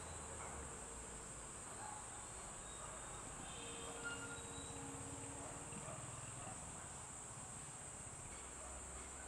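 A steady, high-pitched chorus of insects, crickets by the sound of it, with a few faint short whistled tones and one small tick about four seconds in.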